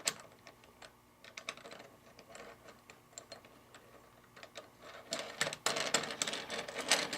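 Light clicks and rattles of small metal hardware (bolts, washers and track fasteners) being handled and fitted into a router table box joint jig. Scattered at first, the clicking gets busier from about five seconds in.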